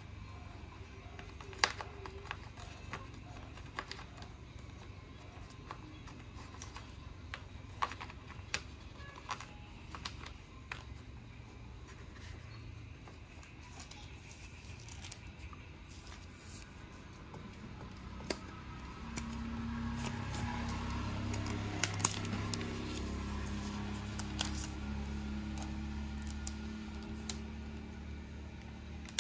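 Unboxing handling sounds: scattered clicks and taps of the cardboard box and its tray as the Apple Magic Keyboard is lifted out, and light rustling of its thin protective sheet. Faint background music with held, shifting low notes comes in about two-thirds through and stays.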